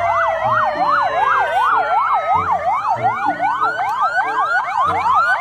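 Several ambulance sirens sounding together, their pitch sweeping rapidly up and down in overlapping cycles. Near the end the sweeps quicken into shorter rising yelps.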